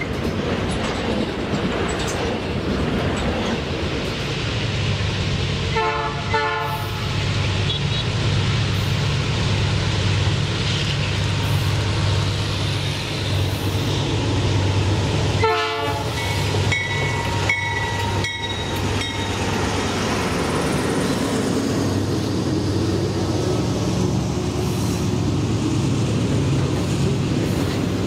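Diesel freight train running with a steady low engine rumble, its horn sounding briefly about six seconds in and again in several short blasts a little past the middle.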